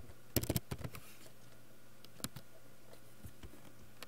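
Computer keyboard keystrokes: a quick burst of four or five key presses about half a second in, then a few single clicks spaced out over the next three seconds. A single mouse click comes near the end.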